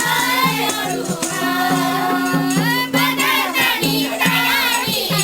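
Music: singing voices over a low accompaniment that alternates between two notes in a steady, repeating rhythm.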